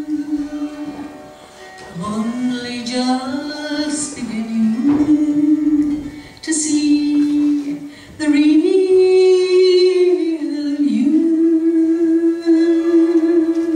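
A woman singing a slow ballad to harp accompaniment, holding long sustained notes with slides between pitches and brief breaths between phrases.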